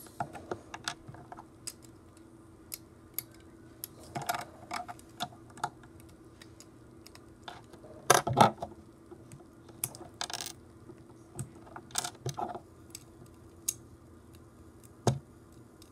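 Plastic Lego bricks clicking and clattering as they are handled and pressed together: irregular small clicks, with a cluster of louder knocks about eight seconds in and a sharp click near the end.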